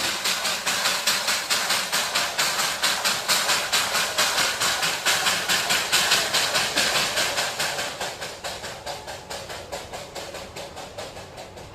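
Darjeeling Himalayan Railway narrow-gauge steam locomotive chuffing in a steady rhythm of about four exhaust beats a second, fading away over the second half as the train draws off.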